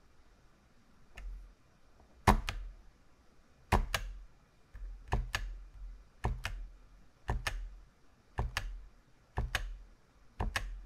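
Computer keyboard keys pressed one at a time, about once a second, eight or so times. Each press is a quick double click with a soft thump underneath.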